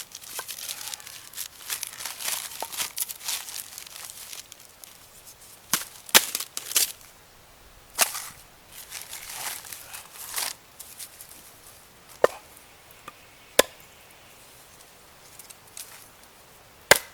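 Batoning firewood with a BK Brute knife: the wood crackles and splits during the first few seconds, then come about eight sharp, irregularly spaced knocks as the blade is struck through the damp, tough wood.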